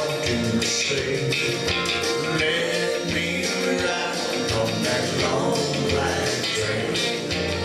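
Country karaoke backing track playing through the hall's sound system, with guitar over a steady beat.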